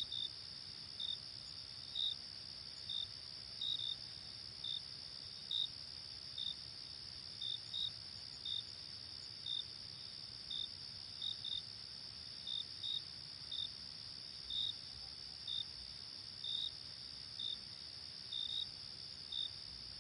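Crickets chirping at night: a steady high-pitched trill chorus, with short chirps from one cricket about once a second, sometimes in quick pairs.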